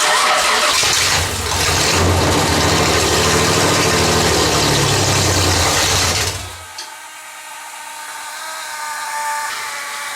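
Sand rail's 3.1L Chevy V6 being started on its starter for a test after new sensors and ignition coils: loud engine noise with a low pulsing rhythm for about six seconds, then it stops, leaving a steady whine. Another start attempt follows right at the end.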